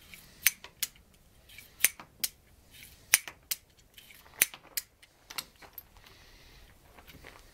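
Sharp metallic clicks from a Heritage Rough Rider .22 single-action revolver being worked in the hands, about fifteen at irregular intervals of roughly a third to half a second.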